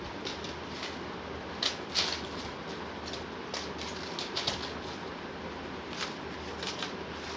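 Light handling noise: scattered short rustles and clicks of small items being moved about, over a steady background hiss.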